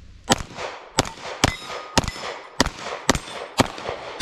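A string of pistol shots fired at steel target plates, about two a second, each followed by the clang and ring of the steel being hit.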